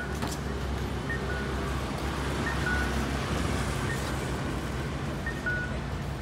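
Japanese audible pedestrian signal of the imitation-sound type playing its electronic cuckoo call, a two-note high-then-low "kak-koo" repeating about every second and a half, the signal that the main-road crossing is open to pedestrians. Low traffic hum runs underneath.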